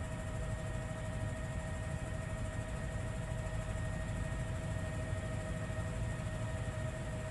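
Camera helicopter's turbine engine and rotor running steadily: a constant whine over a rough low rumble.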